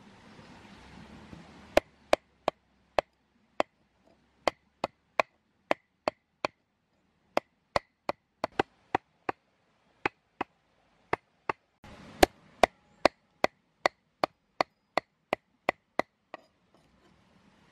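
Knife chopping raw snake meat and bone on a wooden cutting board: a steady run of sharp knocks, about two to three a second, starting a couple of seconds in after some soft handling noise.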